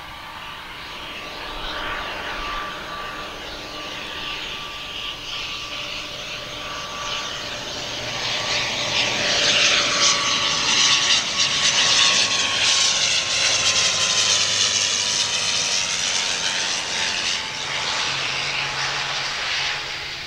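Wings Air ATR 72-500 turboprop passing by on landing. Its engine and propeller sound builds to a peak about halfway, then eases, and a steady whine slowly drops in pitch as the plane goes past.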